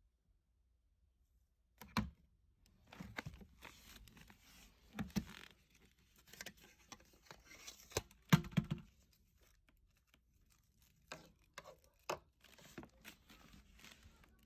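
Hands handling plastic vacuum-cleaner parts and packaging: irregular clicks, knocks and rustling, starting about two seconds in.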